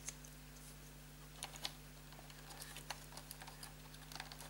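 A few faint clicks and taps from hands fitting a small black part of the cassette deck's power-switch assembly, with a small cluster of clicks near the end, over a steady low hum.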